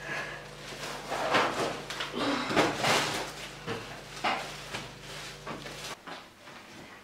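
Plastic shopping bags rustling and crinkling in several bursts as they are set down and opened, over a low steady hum that stops about six seconds in.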